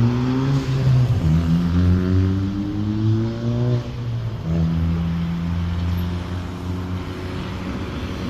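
Emergency vehicle's engine accelerating hard, its pitch climbing and then dropping at a gear change about a second in, climbing again and dropping at a second shift near four seconds in, then pulling steadily.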